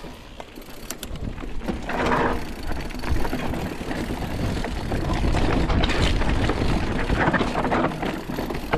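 Mountain bike under way on a trail: a low rumble of wind and tyres with a rattle of clicks from the bike, building over the first couple of seconds and then holding steady.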